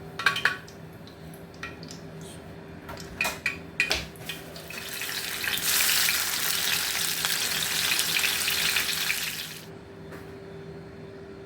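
Kitchen cooking sounds: several clinks and taps of utensils and dishes, then a loud steady hiss for about five seconds that stops abruptly, over a faint steady hum.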